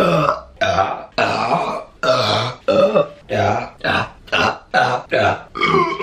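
A woman burping again and again in a quick series of short, loud burps, about two a second.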